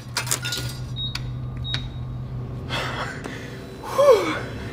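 A coin clinks into a snack vending machine's coin slot, then two short high beeps come about a second apart as its buttons are pressed, over a steady low hum. Near the end a man lets out a short gasp that falls in pitch.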